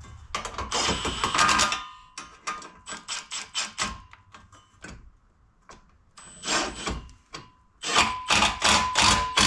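Milwaukee cordless impact wrench with a 13 mm socket hammering in rapid bursts over a motor whine, snugging nuts down onto bolts: one long burst at the start, a few short pulses, then two more bursts near the end.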